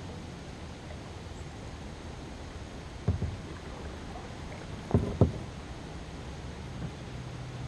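A kayak being paddled: a steady low rumble of water and wind, broken by dull knocks on the boat, one about three seconds in and two close together about five seconds in.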